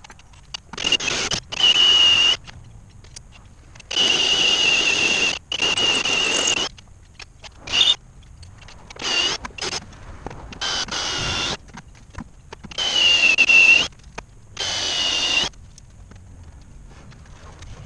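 Red Milwaukee cordless power tool run in about ten short bursts, each half a second to a second and a half long, its motor giving a high whine that dips in pitch on some bursts.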